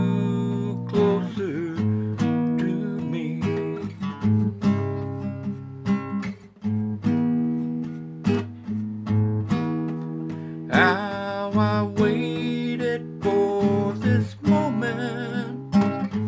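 Acoustic guitar strummed in a steady rhythm of chords, an instrumental break between sung lines, with the sung word "closer" about a second in.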